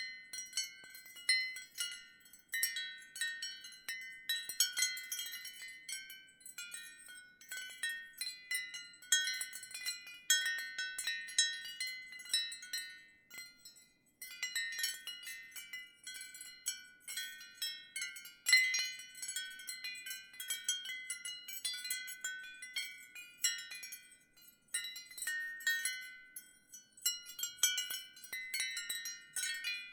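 Ceramic wind chimes ringing: an irregular, unbroken run of overlapping high notes, with a short lull about thirteen seconds in.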